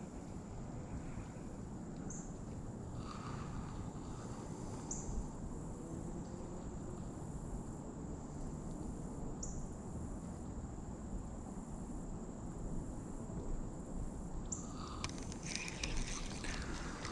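Crickets trilling steadily on one high note that swells every few seconds, over a low wash of outdoor noise. Near the end come a run of sharp clicks and rustles.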